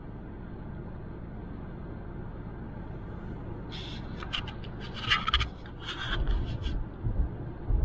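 Steady low road noise of a car driving on the highway. From about four to seven seconds in, a run of scratching and rubbing noises and a few low thumps cut in over it.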